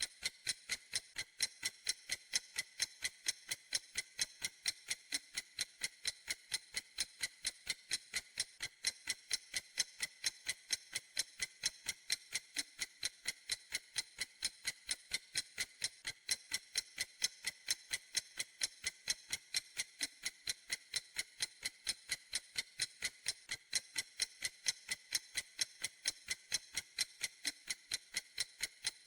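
Clock ticking steadily: sharp, high-pitched ticks at an even, quick pace.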